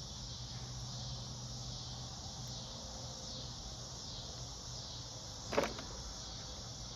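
Steady high-pitched chirring of insects with a faint low hum under it, and one short click about five and a half seconds in as small carburetor parts (throttle slide spring and cap) are handled.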